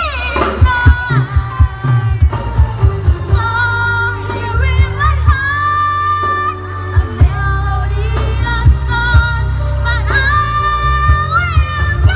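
A young girl singing into a microphone over backing music with a heavy, steady bass beat.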